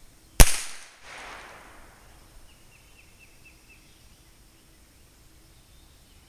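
A single .22 rimfire shot from a Ruger 10/22 rifle: one sharp crack about half a second in, its report trailing off over the next second and a half.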